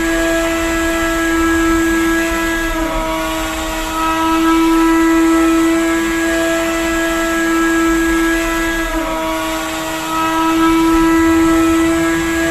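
A drone flying, its propellers giving a steady whine. The pitch dips briefly and recovers twice: about three seconds in, and again near nine seconds.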